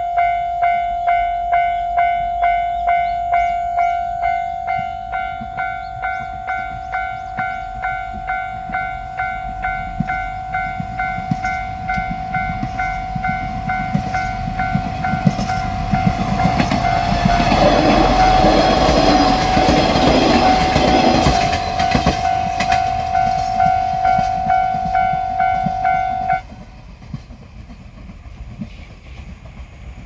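Japanese level-crossing alarm ringing its electronic bell, about two strikes a second, while a three-car KiHa 185 series diesel railcar train passes, its engines and wheels loudest in the middle. The bell stops abruptly a few seconds before the end.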